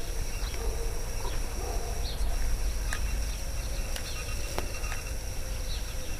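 Outdoor ambience: scattered short chirps of small birds over a steady low rumble, with a single sharp click about four and a half seconds in.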